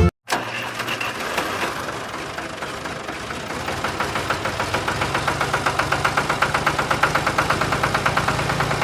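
A small engine running with a fast, even chugging beat, growing a little louder over the second half.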